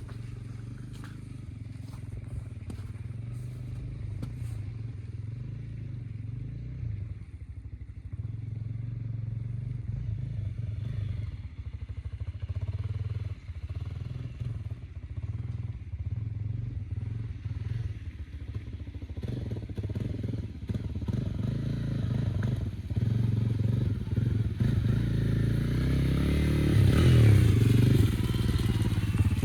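Honda CRF250L's single-cylinder four-stroke engine running at low revs off-road, growing louder as the bike comes closer, and revving up near the end.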